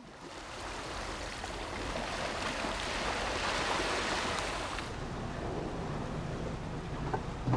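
Seawater rushing and washing, fading in at the start. About five seconds in the hiss drops away and a low steady hum comes up under the water sound.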